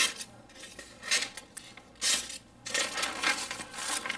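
A folding knife blade slicing through a sheet of paper: a few short cutting strokes, then a longer uneven cut near the end. The blade does not glide through cleanly but has to be pushed through the paper.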